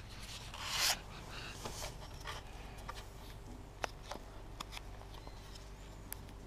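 Close-up handling noise of a small camera held by a child: soft rustles and scattered sharp clicks and taps, the loudest a breathy rustle about a second in, over a low steady hum.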